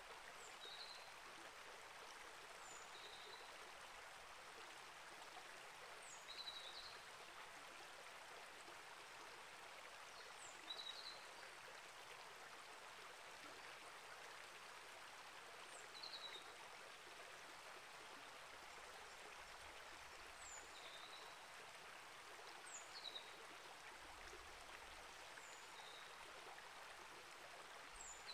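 Small rainforest creek flowing over rocks in a steady, even rush. Short high bird chirps come every few seconds.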